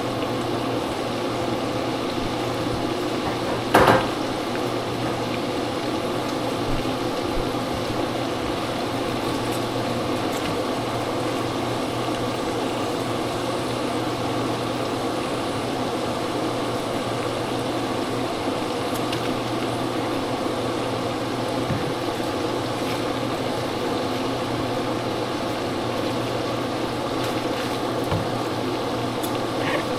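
A steady mechanical hum, like a running appliance motor or fan, with one brief sharp knock about four seconds in.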